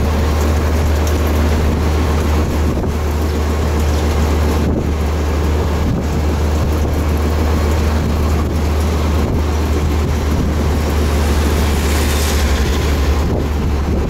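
Cabin noise inside a moving road vehicle: a steady low engine drone under even road and wind noise.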